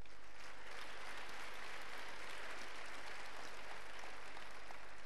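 Audience applauding. The clapping swells in the first seconds, then thins out to scattered single claps near the end.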